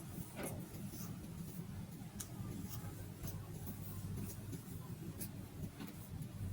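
Kinetic sand being worked with a tool: scattered light scrapes and clicks, roughly one or two a second, over a steady low hum.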